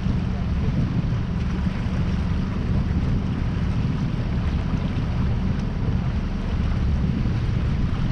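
Strong wind buffeting the microphone in a steady low rumble, with the rush of water along a sailboat's hull and wake beneath it.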